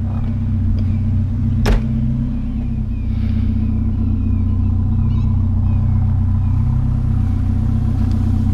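Truck engine running steadily with a low, even drone. A single sharp knock comes just under two seconds in.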